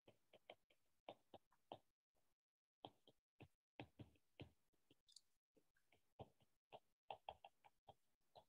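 Faint, irregular ticks and taps of a stylus on a tablet's glass screen while handwriting, several a second with short gaps.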